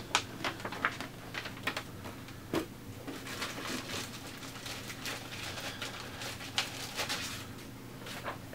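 Paper rustling and crackling as a large folded paper poster and printed documents are folded and handled, in irregular sharp crinkles over a faint steady low hum.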